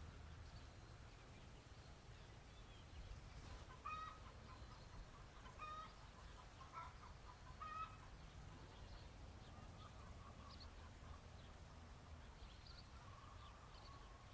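Faint, short calls of domestic fowl: four single calls about a second apart from about four seconds in, then a few softer ones near the end, over a low steady rumble.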